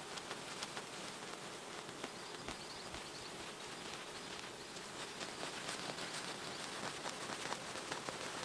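Moss being pulled up by hand from the forest floor and carried through ferns: soft, irregular rustling and small tearing crackles with light steps in the undergrowth. Insects buzz faintly in the background.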